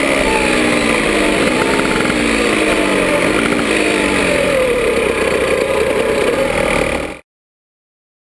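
The 70cc two-stroke engine of a 1957 Puch MS50 moped running on the road, its pitch falling as the bike slows, with a brief rise in the middle. The sound cuts off abruptly about seven seconds in.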